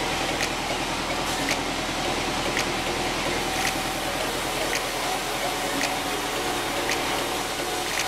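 Sawmill band saw and its drive running steadily, a layered mechanical hum with a faint tick about once a second.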